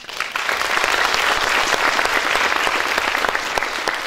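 An audience in a hall applauding, starting at once after a speech ends and holding steady, easing slightly near the end.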